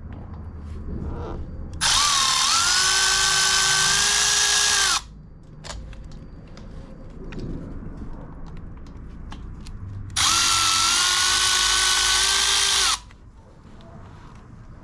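Cordless power drill/driver spinning out bolts on a Harley Twin Cam's cam chest in two bursts of about three seconds each. The motor whine rises quickly to speed, holds steady, then cuts off. Quieter handling noises fill the gaps.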